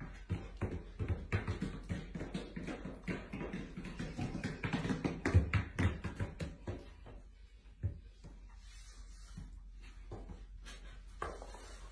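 Huskies wearing dog boots walking on a hard floor: many irregular tapping and thudding footfalls, thinning out and fainter after about eight seconds.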